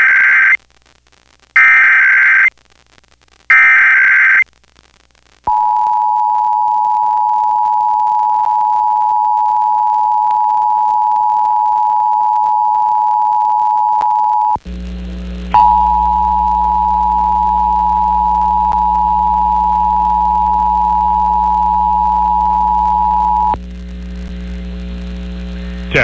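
Emergency Alert System tones over FM radio. First come three one-second bursts of the shrill SAME header data tones, then the two-tone attention signal (853 and 960 Hz sounded together). The attention signal cuts out briefly about halfway through, then resumes with a low electrical hum beneath it, and stops a few seconds before the end, leaving the hum alone.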